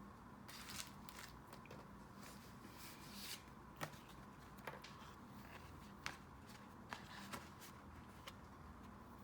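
Faint paper and stationery handling: short rustles of paper with a few light, sharp taps and clicks.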